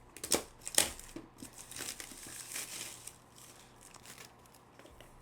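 Plastic trading-card packaging being handled, crinkling and tearing, with two sharp clicks in the first second and a longer stretch of rustling after.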